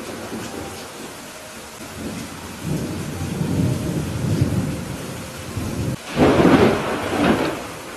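Thunderstorm: steady rain with thunder rumbling low from about three seconds in, then a louder, sharper thunderclap a little after six seconds that rolls on with a second peak.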